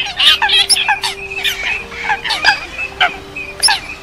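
A dense chorus of waterfowl calls, a lure recording that mixes Eurasian coot, wild duck, teal and lesser whistling duck. It is a quick run of short, overlapping calls, several a second, with sharp clicks among them and a few held low notes underneath.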